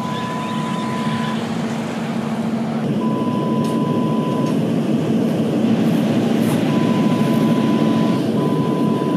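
Steady, loud noise of a moving vehicle, with a low hum underneath. A pure high beep sounds four times, each lasting about a second and a half.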